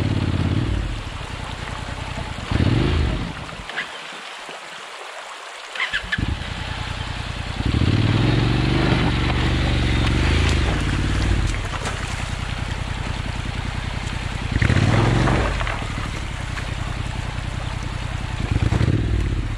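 Honda NC750X parallel-twin motorcycle engine running and being revved in surges, over the trickle of a shallow stream. The engine note drops away for about two seconds around four seconds in, then returns.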